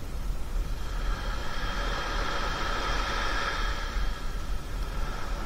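Small waves breaking and washing up a sandy beach: a hiss of surf that swells about halfway through and then eases, over a steady low rumble.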